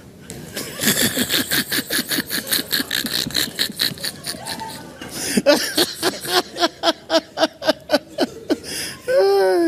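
Men laughing hard: a long run of quick ha-ha bursts, several a second, with the pitch of each burst falling in the second half. Near the end there is one drawn-out vocal sound.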